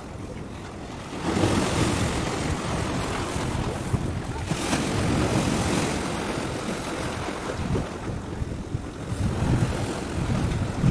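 Wind buffeting the microphone over the wash of sea waves, gusting up sharply about a second in and rising and falling after that.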